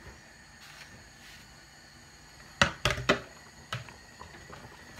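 A quick run of sharp knocks of a wooden spatula against a steel cooking pot about two and a half seconds in, then one more knock a moment later, while flour is being stirred into the pot.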